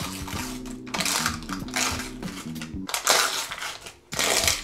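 Paper baking mould crinkling and tearing in several bursts as it is peeled off a freshly baked kulich, over background music.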